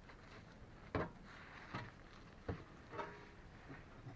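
A few short, sharp knocks at irregular spacing as the front suspension of a BMW E34 is rocked by hand, the knocking of worn anti-roll bar links.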